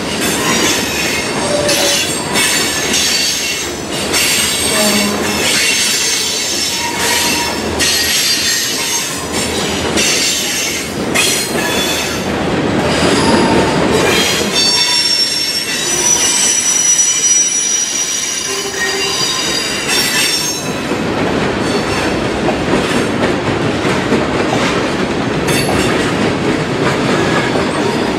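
Freight cars rolling past: steel wheels knocking rhythmically over rail joints, with high, steady wheel squeal in the middle stretch.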